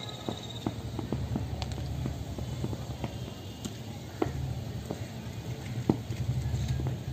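Wind rumbling on the microphone, with scattered light taps and clicks.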